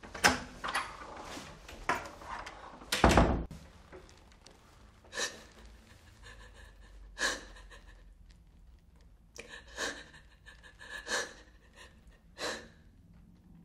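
A few knocks, then a door shut with a heavy thud about three seconds in. After that a woman sobs, with about five separate gasping breaths.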